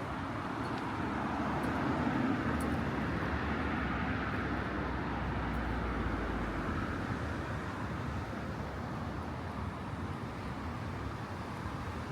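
City street traffic: a motor vehicle passes close by, its noise swelling a couple of seconds in with a low rumble near the middle, then fading back into the steady background of the street.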